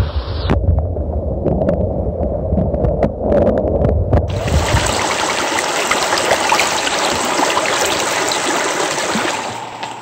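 Rocky mountain stream heard through a phone microphone held underwater: a muffled low rush with scattered clicks. About four seconds in the microphone comes out of the water and the full, splashing rush of the fast-flowing stream takes over.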